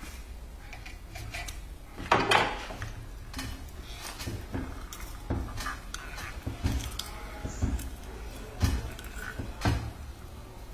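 Small hand-cranked screw oil press crushing peanuts: irregular cracking and knocking from the nuts being ground in the screw and the metal parts clanking, with a louder clatter about two seconds in.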